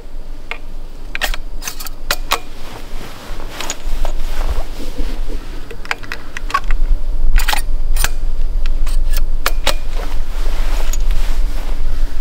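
Irregular metallic clicks and clinks as .45-70 Government cartridges are pushed one by one through the side loading gate of a Henry lever-action rifle, with a low rumble underneath from about four seconds in.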